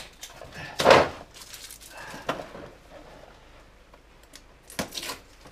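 Packing tape being ripped off a cardboard box, a loud tear about a second in and a shorter one near the end, with light rustling and clicks of cardboard being handled.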